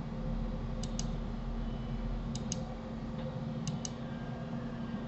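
Computer mouse clicking: three pairs of short, sharp clicks about a second and a half apart, with a steady low hum underneath.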